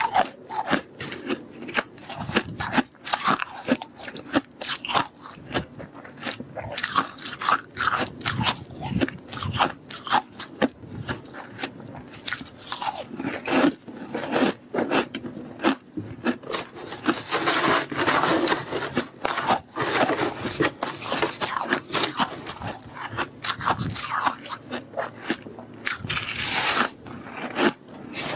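Freezer frost being bitten and chewed close to the microphone: a continuous run of crisp crunches, densest past the middle.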